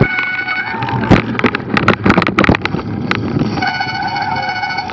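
A Cannondale F-Si hardtail mountain bike clattering over a rough trail, with rapid knocks and rattles over the rush of riding. A high squeal with overtones sounds briefly at the start and again through the last second or so.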